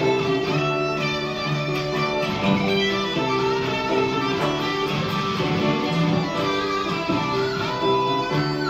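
Instrumental background music led by plucked guitar, a steady run of notes.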